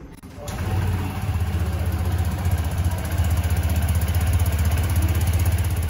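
TVS Jupiter 125 scooter's single-cylinder four-stroke engine starts about half a second in and idles steadily.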